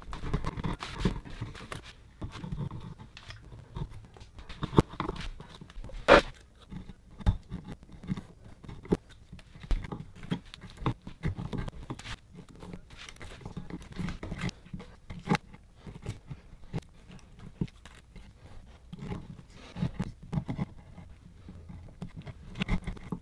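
Sharpened flathead screwdriver cutting and scraping into birch wood: short, irregular scraping strokes and small clicks as wood chips are pared away, with one sharper click about six seconds in.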